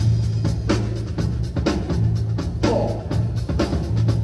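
Music played by the DJ over the sound system: a steady drum beat of about two hits a second over a heavy bass line.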